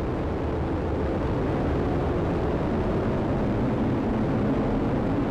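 Atlas V rocket's RD-180 main engine and two solid rocket boosters running at full thrust during liftoff: a steady, loud, deep rumble.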